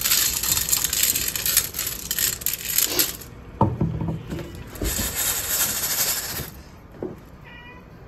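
Rattling and clinking of small hard objects in two bouts, the first about three seconds long and the second about a second and a half, with a few dull knocks between them.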